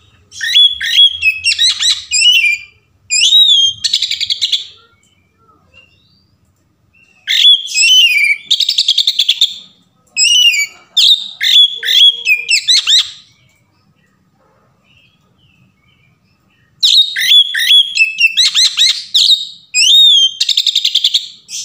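Oriental magpie-robin (kacer) singing loudly in three bouts of varied song, each a few seconds long. The bouts mix clear whistles that slide up and down with fast rattling trills, and there are pauses of about two to three seconds between them.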